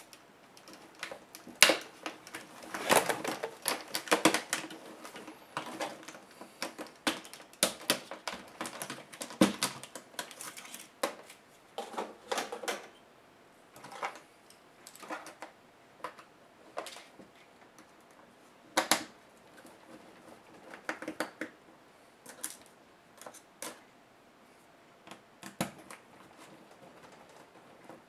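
Plastic display bezel of a Dell Studio 1558 laptop being pried off by hand: a dense run of irregular clicks and snaps as its clips let go, then scattered clicks and knocks from handling the parts.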